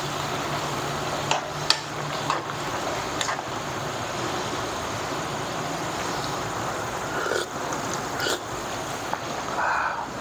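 Broth boiling in a wok, a steady bubbling hiss, with a few light clinks of a spoon against the pan, several in the first three seconds and two more later.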